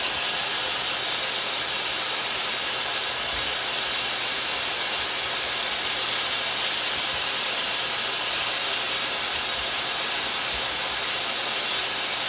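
Miele S318i canister vacuum cleaner running steadily, air rushing through a micro vacuum brush attachment as it is brushed over a Lego model to lift the dust.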